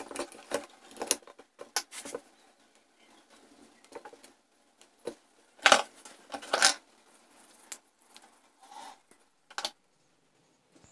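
Scattered light clicks and taps of hand tools and wire being handled on a switch-and-socket wiring board, with two louder sharp clicks a little past the middle.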